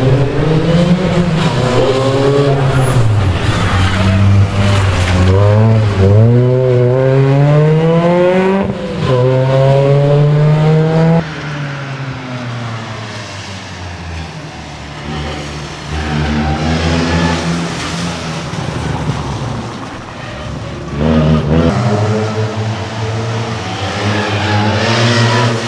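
Ford Fiesta ST rally car's engine revving hard through the gears, the pitch climbing and dropping with each shift and lift. Loud at first, it grows fainter in the middle as the car runs farther away, then comes back loud near the end.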